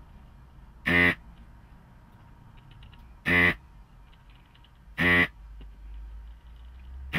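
Handheld desoldering gun's vacuum pump buzzing in short bursts, each time the trigger is pulled to suck molten solder off a circuit-board pin. There are four brief buzzes about two seconds apart, the last right at the end.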